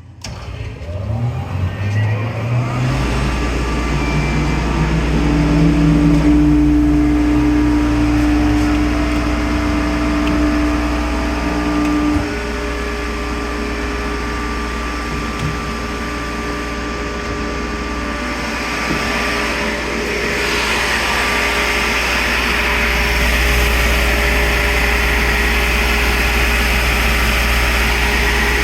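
Maximus 10 HP direct-drive rotary screw air compressor starting up: its electric motor winds up over the first two to three seconds, then runs with a steady low hum and a held whine. About twelve seconds in the sound drops a step, and from about twenty seconds a hiss grows louder.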